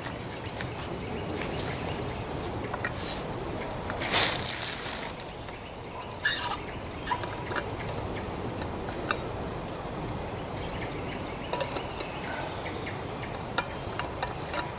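Outdoor background with scattered short bird calls over a steady noise bed, and a brief louder burst of noise about four seconds in.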